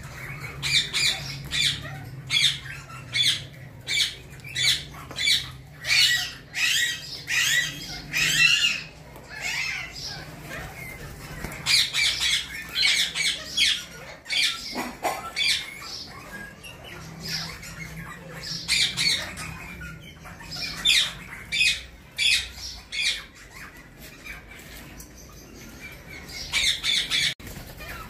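A flock of Alexandrine parakeets squawking: short, harsh, high calls in quick runs, several a second at their busiest, with brief lulls between the runs.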